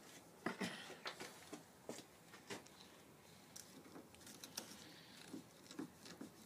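Faint, irregular clicks and scrapes of a hand screwdriver working screws out of a wooden canoe's gunwale.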